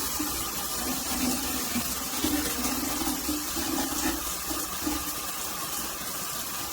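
Water pouring steadily from a large stainless-steel rainfall shower head, a continuous even hiss of spray falling.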